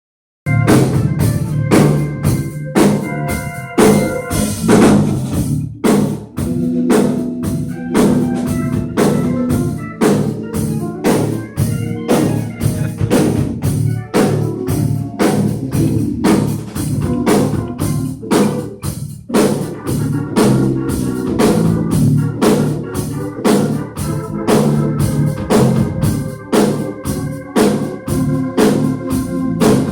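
A band playing at a sound check: a drum kit keeps a steady beat under sustained organ chords and a low moving bass part. It starts suddenly about half a second in.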